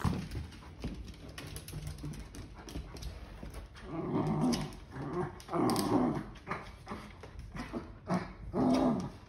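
A small curly-coated dog scratching at a hardwood floor with its claws, with scrapes and clicks throughout. It vocalises in three short, pitched bouts: about four seconds in, about six seconds in, and near the end.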